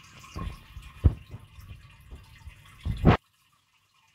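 Aquarium water trickling and splashing steadily, with several dull knocks, the loudest about a second in and just before three seconds. The sound cuts out abruptly a little after three seconds.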